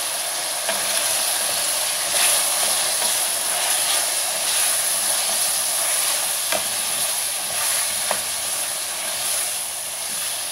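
Cubes of bottle gourd, potato and tomato sizzling in oil with ground spices in an aluminium pressure cooker as they are stirred and sautéed with a wooden spatula. A steady sizzle, with a few light knocks of the spatula against the pot.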